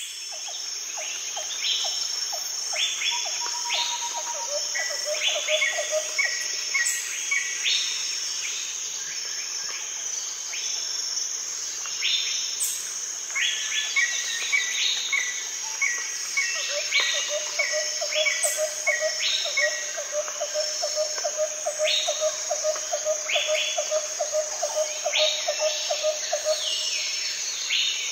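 Birds singing and chirping, with short falling calls and runs of quick notes, over a steady high insect buzz. A low, rapid trill comes in twice, the longer run starting a little past halfway. The whole fades out near the end.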